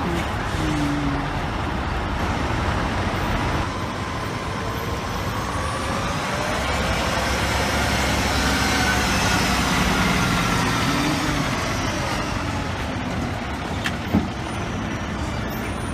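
A heavy truck engine passing over steady street traffic noise, growing louder to a peak about nine or ten seconds in and then fading. There is a sharp click near the end.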